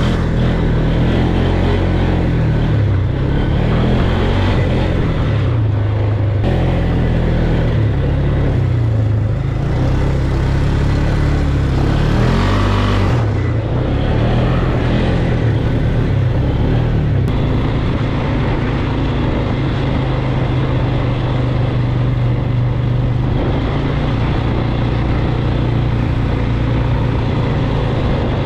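Polaris ATV engine running under the rider, revving up and down repeatedly in the first half as it climbs through the sand, then holding a steadier pitch.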